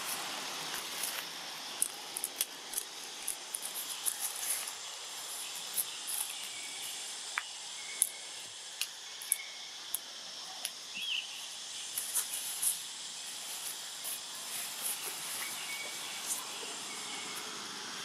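Forest ambience: a steady, insect-like hiss with scattered sharp clicks and a few faint short chirps.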